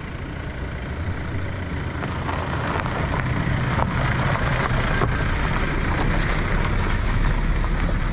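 Vehicle towing a camping trailer on the move: steady engine and road noise that grows louder over the first few seconds.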